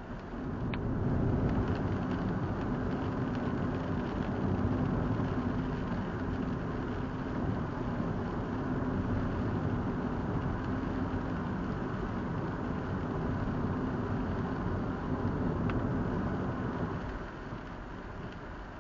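Car driving on a wet road, heard from inside the cabin: steady engine hum and tyre noise that grows louder about a second in and eases off near the end.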